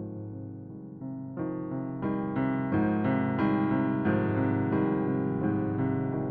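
Solo keyboard with a piano sound playing slow, sustained chords, with new notes coming in about one and two seconds in and the music growing louder.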